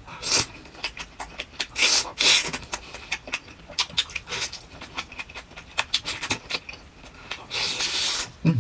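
A person eating in close-up: biting grilled seafood off a skewer and chewing it, with many irregular wet mouth clicks and smacks, and a longer, louder noisy stretch near the end.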